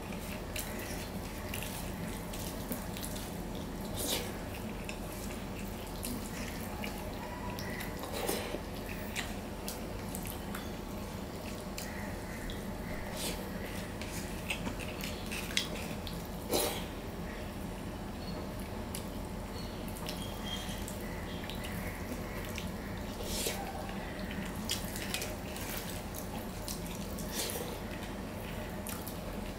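Fingers mixing and squeezing rice with mashed potato and thin masoor dal on a steel plate, making scattered short wet clicks and squelches, with chewing, over a steady low hum.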